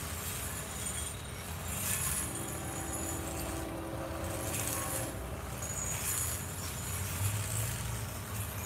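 Approaching train heard from a distance: a steady low rumble, with the horn sounding faintly from about two seconds in for about three seconds.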